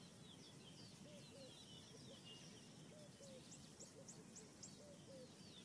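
Faint wild birdsong: scattered chirping calls, a quick run of about five high notes in the middle, and soft low calls.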